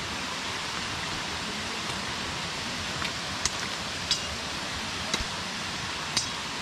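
Steady rush of flowing water from a river and waterfall. From about three seconds in, five or so short, sharp clinks of hard objects knocking together.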